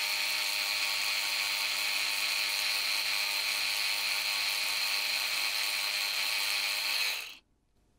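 Sonic Scrubber battery-powered cleaning brush running with a steady high buzz, its bristles held against a phone circuit board; it stops abruptly near the end.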